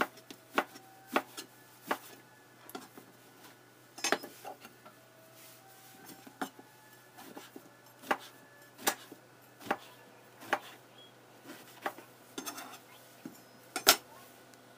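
Chef's knife slicing a block of dried tofu into strips on a plastic cutting board: a sharp tap each time the blade meets the board, at an uneven pace of roughly one a second. A louder knock comes near the end as the knife is set down on the board.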